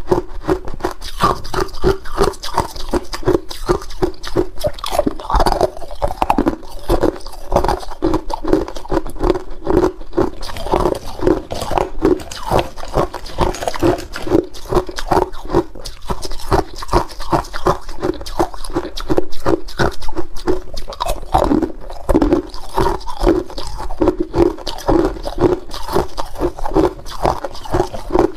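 Hard clear ice cubes crunched and chewed close to the microphone: a fast, unbroken run of crisp crunches, several a second.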